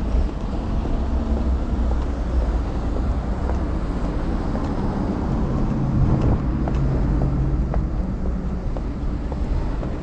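Street noise: a steady low rumble of traffic, swelling for a moment about six seconds in.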